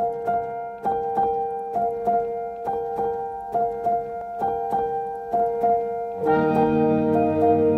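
Instrumental background music: a repeating keyboard figure of struck, fading notes, joined about six seconds in by fuller sustained chords.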